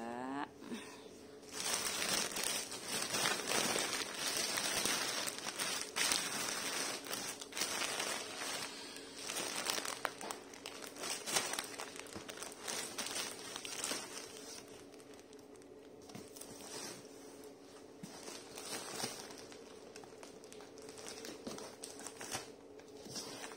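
Clear plastic packaging crinkling and rustling as a plastic-bagged bundle is pressed down into a cardboard box, loud and busy for the first half, then softer and patchier as the box flaps are folded over.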